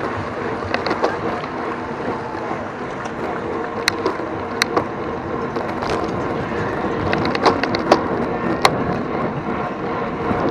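Road bike rolling at race speed: a steady rush of tyre and wind noise, with several sharp clicks scattered through it.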